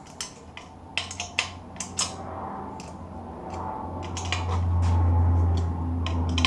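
Sharp metallic clicks and taps of a spanner working the nuts on the exhaust flange of a small turbojet engine. Under them runs a steady low hum that grows louder in the second half.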